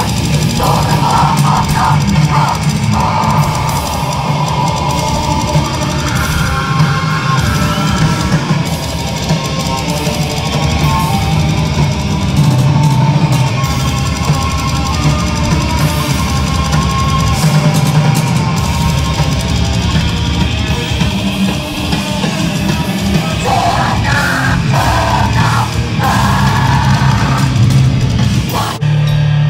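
Heavy metal band playing live through a PA: loud distorted electric guitars and bass over a pounding drum kit. The sound changes abruptly just before the end.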